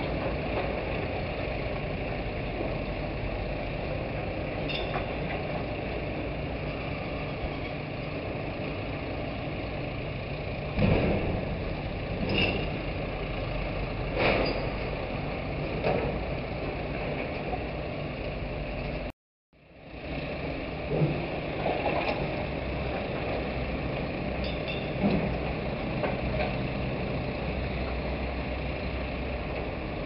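Steady engine hum of a dockside crane working a clamshell grab to unload sand, with clanks and knocks every few seconds through the middle stretch. The sound cuts out for a moment about two-thirds of the way through.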